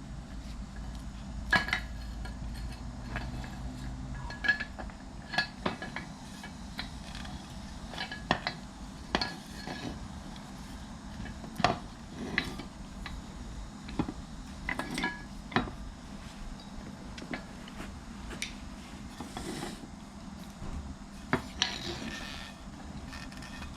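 Metal hand tools and parts clinking and tapping against each other at irregular intervals, some strikes ringing briefly, over a steady low hum.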